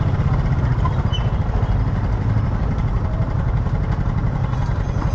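A motorbike engine idling steadily close by.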